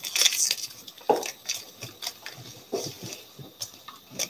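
Foil trading-card pack wrapper crinkling and rustling as it is opened by hand and the cards are pulled out, in irregular crackles with a few sharper clicks.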